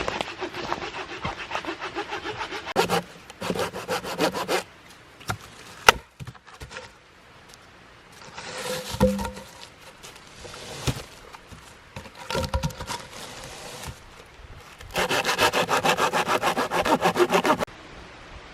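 Hand saw cutting through a wooden pole in quick back-and-forth strokes, in several bouts with pauses between, the last bout the loudest. A single sharp knock about six seconds in.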